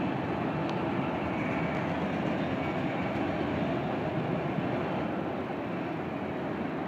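Auto-rack freight cars of a passing train rolling across a steel truss bridge: a steady rumble of wheels and cars at an even level.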